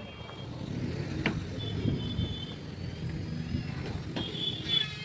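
Low, steady rumble of motor traffic, with two sharp knocks and a couple of brief high-pitched tones.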